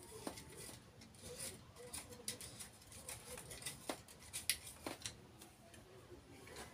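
A knife blade scraping and cutting the dry fibrous husk of a coconut in irregular short strokes. The strokes are faint scratchy snicks, a few of them sharper than the rest.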